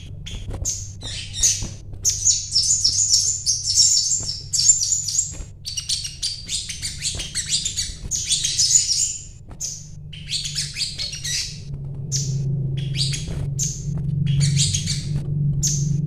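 Caged brown-throated sunbird (sogon) singing: rapid, high chirps and twittering runs. The longest chattering phrases come in the first half, then shorter bursts. A low steady hum runs underneath.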